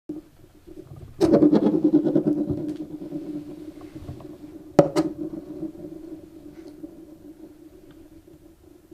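An egg being cracked: a loud sharp crack about a second in and a quicker double crack near five seconds. Each is followed by a low tone that slowly fades.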